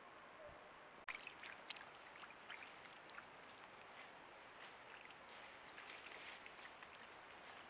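Faint outdoor ambience from a trail camera's microphone: scattered soft ticks and crackles begin after a cut about a second in, over a steady faint high-pitched electronic whine.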